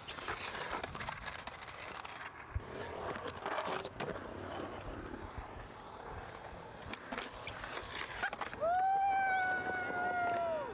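Skateboard wheels rolling over concrete, with scattered clacks and knocks of the board. Near the end a high, held tone lasts about two seconds and then drops away.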